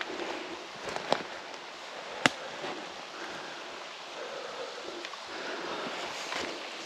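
Steady outdoor rushing hiss of forest ambience, with two sharp snaps: one about a second in and a louder one a little over two seconds in.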